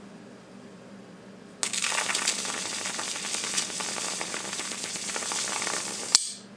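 High-voltage arc from a flyback transformer, drawn between a steel hex key and a steel square: a crackling hiss that starts suddenly about one and a half seconds in and runs steadily for about four and a half seconds, ending with one sharp snap as the arc breaks off.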